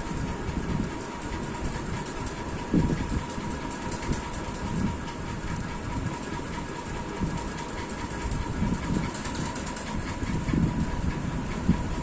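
Room fan running steadily: a constant whirring rush with a thin steady whine, and a few soft low bumps over it.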